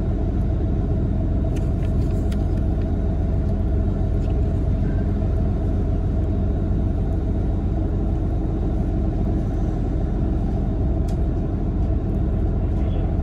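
Airport ramp bus driving across the apron, heard from inside the cabin: a steady low engine and road rumble, with a few faint clicks and rattles.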